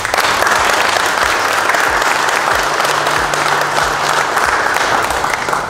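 Audience applauding: a dense, steady round of clapping that starts suddenly and dies away at the end.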